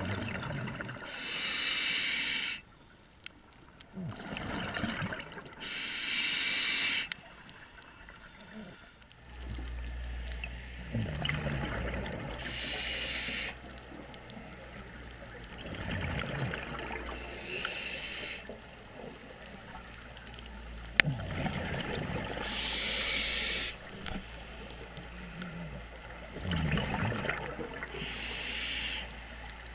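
Scuba diver breathing through a regulator underwater: a hissing inhale, then a gurgling burst of exhaled bubbles, repeating about every five to six seconds.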